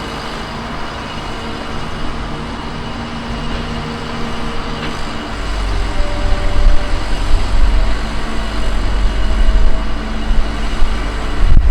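Heavy construction machinery engines running steadily. About halfway through, a deep low engine sound grows much louder.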